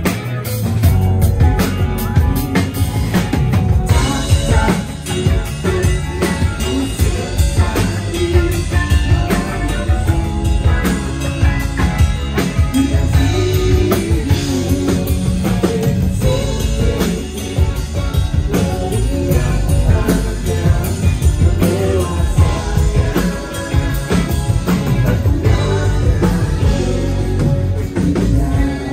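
Rock band playing a song at full volume, with drum kit, bass and guitar and a singing voice, running without a break.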